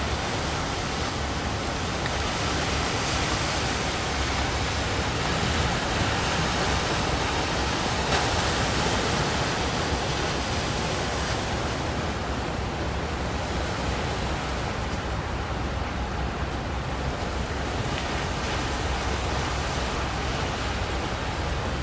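Steady rushing of heavy surf, with a low rumble underneath.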